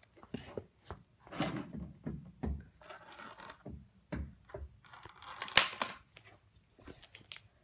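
Scattered rustles and knocks of movement and handling near the microphone, with one sharp, loud knock about five and a half seconds in.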